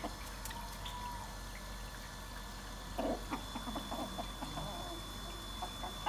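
Chickens clucking quietly, a little louder about three seconds in.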